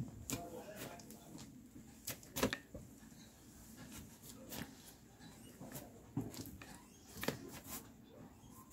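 Scattered light knocks and rustles of a person moving about and stepping barefoot onto a bed covered with a woven mat, the loudest pair of knocks about two and a half seconds in, over a faint steady hum.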